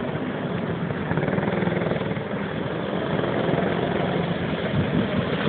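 Go-kart engines running as the karts drive round the track: a steady, buzzing engine drone.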